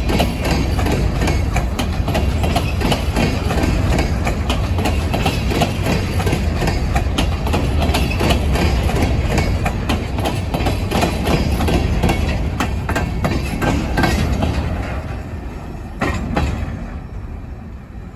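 Freight train of open-top hopper cars rolling past, steel wheels rumbling and clicking over the rail joints. The sound fades over the last few seconds as the last car moves away, with one louder clack near the end.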